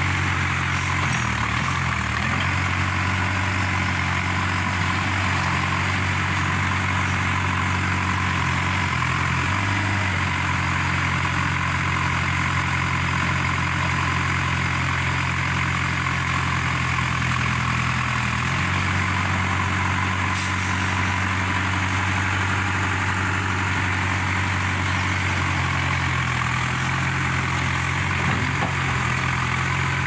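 JCB 3C backhoe loader's diesel engine running steadily close by, its pitch shifting briefly a few times as the revs change.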